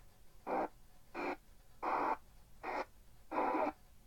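Sony ICF-SW35 portable radio's speaker giving five short bursts of station audio and static, about one every 0.7 s with quiet between, as its button tuning steps up through the AM band.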